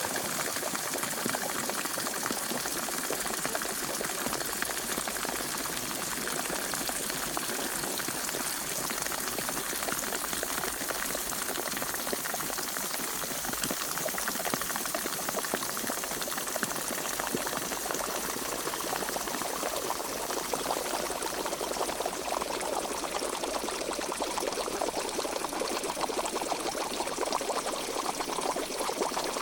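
Pot of water at a rolling boil: a steady, dense bubbling and popping that keeps up without change.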